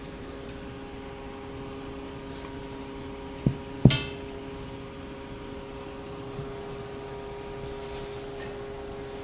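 Two sharp knocks about half a second apart, the second louder with a brief metallic ring, over a steady low hum.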